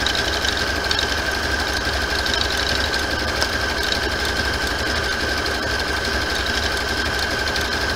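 Brother sewing machine running steadily, stitching around the edge of a fabric appliqué, with an even hum and a fast, regular needle rhythm.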